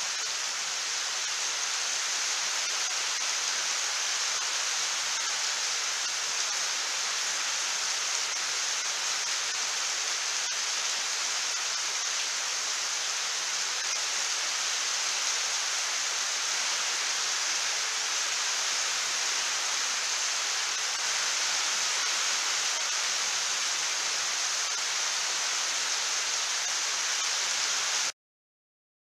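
Rain falling steadily in a dense, even hiss. It cuts off suddenly near the end.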